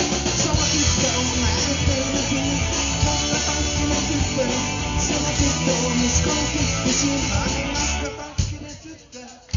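Live rock band playing loud through a PA: electric guitars and drum kit. The music cuts away about eight seconds in, leaving two short, loud hits.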